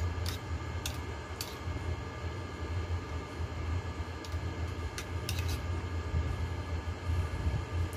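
Metal spoon clinking against the bowl a few times while eating soup, three short clicks in the first second and a half and several more around five seconds in, over a steady low rumble.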